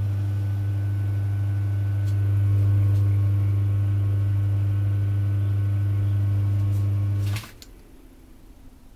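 Betts single-phase induction motor running on mains power with a deep, steady electrical hum and a rattle that the owner puts down to the AC supply. It is switched off about seven and a half seconds in: a click, and the hum cuts off suddenly.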